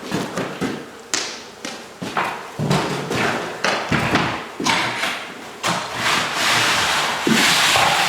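Repeated knocks and thuds, about two a second, like hammer blows on wood. In the last two seconds they give way to a steadier scraping noise.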